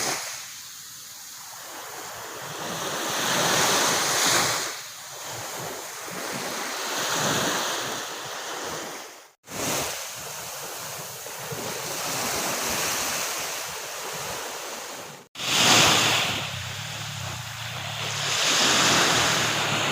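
Ocean surf breaking on a beach, with waves swelling and washing back every few seconds. Twice the sound cuts out abruptly for an instant.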